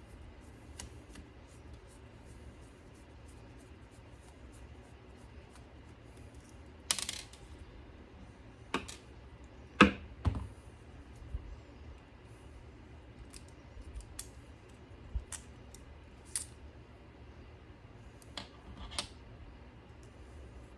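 Scattered small clicks, taps and knocks of hand tools and small parts being handled during a CD pickup replacement, with a handful of louder sharp knocks around seven to ten seconds in. A faint low hum runs underneath.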